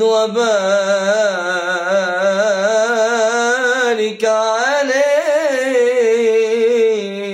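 A man singing the closing blessing on the Prophet of an Islamic ibtihal, stretching each word into long wavering melismas. He breaks briefly about four seconds in, then sings 'wa barik' into a long held note.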